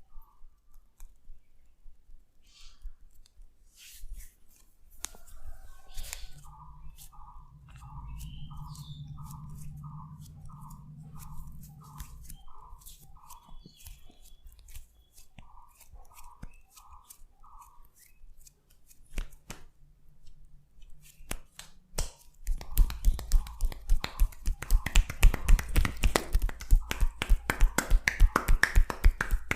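Hands massaging skin: scattered soft clicks and rubs, then, about three-quarters of the way through, fast rhythmic hand slaps, several a second, of a percussive chopping massage. A run of short high chirps, about two a second, sounds in the middle.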